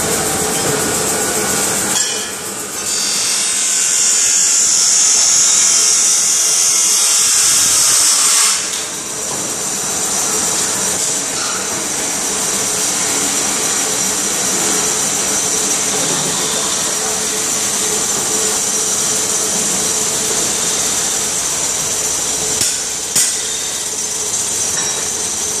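Metal-turning lathes running in a machine shop: a steady hum, with a loud high hiss from about three to eight seconds in and two sharp clicks near the end.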